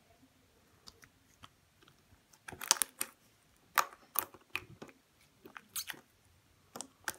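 Stretchy slime worked between the fingers, giving a string of sharp clicks and pops. A few faint ones come about a second in, and they crowd together from about two and a half seconds on.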